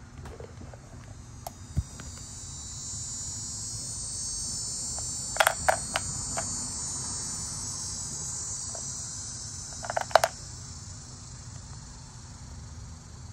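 Steady high-pitched insect buzzing that swells in the middle and fades near the end, with two clusters of sharp clicks, about five seconds in and again about ten seconds in, as the epoxy resin domino box's lid is handled.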